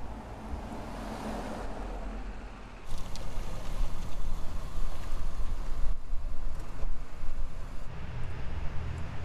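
Car with its engine running, a low rumble and road noise, which jumps louder abruptly about three seconds in.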